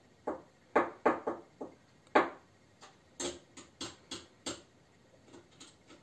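A dozen or so light clicks and taps at uneven intervals, with short gaps of quiet between them.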